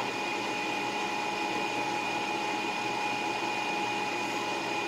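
Steady whirring noise of a running motor or fan, with a faint high whine held at one pitch.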